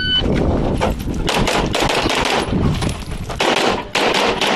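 Electronic shot-timer start beep, then rapid handgun fire, many shots in quick succession as a competitor shoots a USPSA stage.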